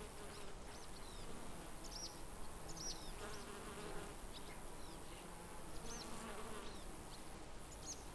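Nature ambience of buzzing insects, with short high chirps scattered throughout.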